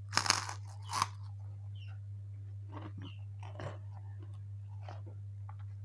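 Close-miked crunching as a kerupuk cracker is bitten and chewed: a loud crunch just after the start and another about a second in, then quieter chewing with small crackles. A steady low electrical hum runs underneath.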